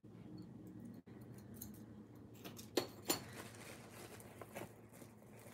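Jewellery being handled: faint clinks of metal necklace chains and beads, with a couple of sharper clicks about three seconds in.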